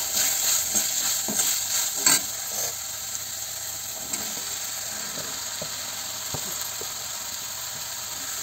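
Chopped gourd and taro stalks sizzling in hot oil in a metal kadhai. A metal spatula scrapes and stirs through them, with strong strokes and a knock against the pan in the first two seconds, then a steady, quieter sizzle with a few light clinks.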